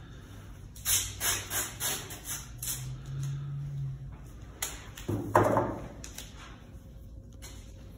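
Masking tape pulled off the roll in a quick series of short rips, then one louder rip about five seconds in, as a panel is back-taped.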